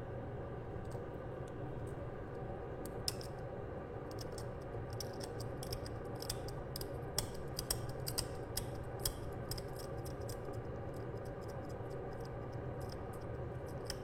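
Scalpel blade scraping and clicking in short, sharp strokes as it cuts an A11 RAM chip free from an old CPU package, thickest between about five and nine seconds in, over a steady low hum.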